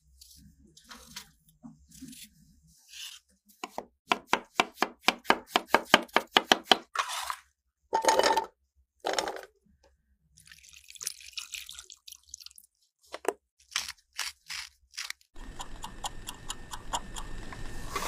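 A paring knife scrapes peel off a potato. Then comes a fast, even run of knife strokes chopping potatoes on a wooden board, and two heavier knocks. Milk pours into a steel saucepan, and near the end comes a steady hiss of the gas burner with the milk boiling in the pan.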